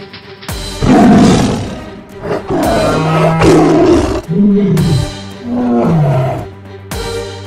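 Several loud animal roar sound effects in a row, over steady background music.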